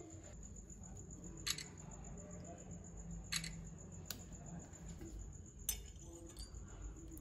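A few sharp clicks of metal utensils against a ceramic plate as a second piece of fried fish is set down and a small knife is pushed into the fillet, over a faint low hum.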